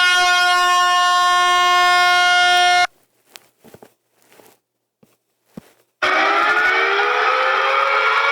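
Air horn sound effect played from a phone app: one loud, steady blast that cuts off sharply about three seconds in. A few faint clicks follow. About six seconds in, a second, rougher horn sound starts, its pitch slowly rising.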